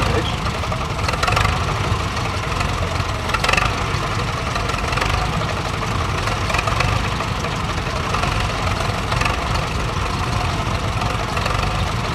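Vintage crawler tractor's engine running slowly at low speed, with a few brief louder moments, as the tractor creeps back and forth balancing on a seesaw plank.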